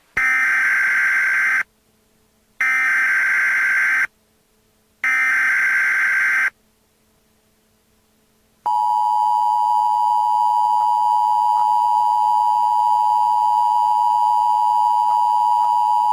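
Emergency Alert System tones: three short bursts of warbling SAME header data, each about a second and a half long with a pause between. About nine seconds in, the steady two-tone EAS attention signal starts.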